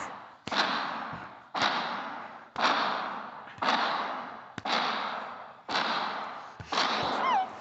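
Monster footsteps sound effect: heavy stomping thuds, about one a second and seven in all, each fading away in a long echo. A short wavering pitched sound comes near the end.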